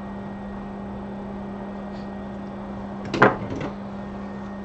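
A loose microscope light being fitted back onto the microscope: a sharp plastic-and-metal clatter about three seconds in, followed by a couple of lighter knocks. A steady electrical hum from the bench equipment runs underneath.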